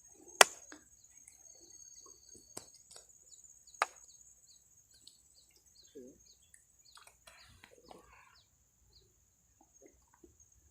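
A steady high insect buzz, with a few sharp knocks and clicks over it. The loudest knock comes about half a second in and another near four seconds.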